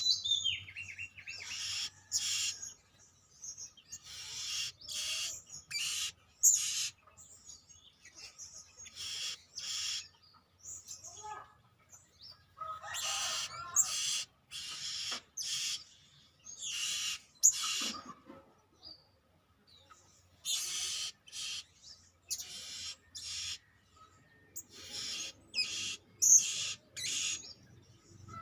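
Blue-crowned hanging parrot (serindit) giving repeated high, sharp chirps in quick runs, with short pauses between them.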